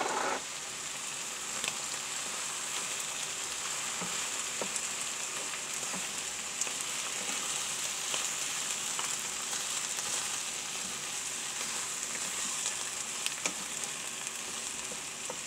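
Morel mushrooms, onions and eggs sizzling steadily in sunflower oil in a frying pan, stirred with a wooden spatula, with scattered faint ticks.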